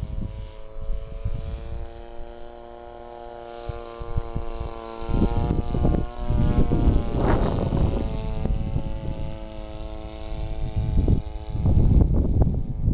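RC model airplane's 26cc engine, converted to run on nitro fuel, running steadily in flight. Its pitch drops as the plane passes by about seven seconds in. Wind buffets the microphone near the start and again near the end.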